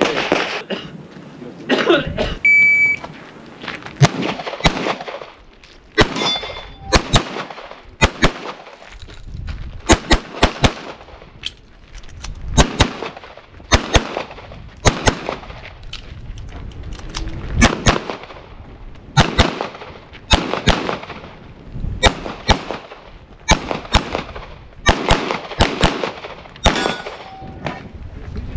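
9mm CZ SP-01 pistol fired rapidly, mostly in quick double shots a split second apart, with short pauses between groups. Dozens of loud shots in all.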